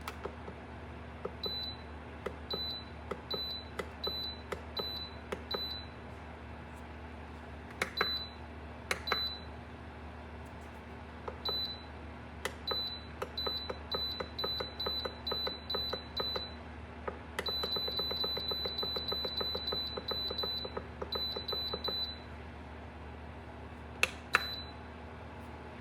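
Ceramic space heater's control electronics beeping as buttons are pressed: single short beeps at one high pitch, a few clicks, then a fast run of beeps for several seconds. The heater's fan hums steadily underneath.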